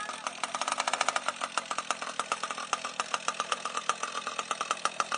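Small petrol engine of a model boat running at low speed, with a rapid pulsing beat of about ten pulses a second.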